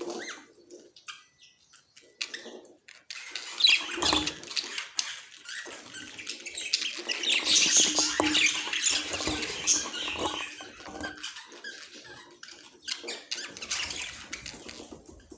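Budgerigars chattering and squawking in irregular, scratchy bursts with short clicks. The sounds drop away briefly from about one to three seconds in, then pick up again.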